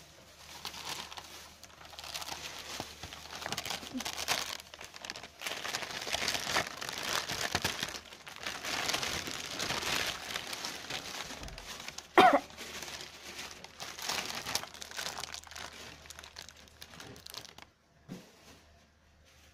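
Thin plastic shopping bag rustling and crinkling as kittens move around inside it. About twelve seconds in, one short kitten mew that falls in pitch, the loudest moment; the rustling stops near the end.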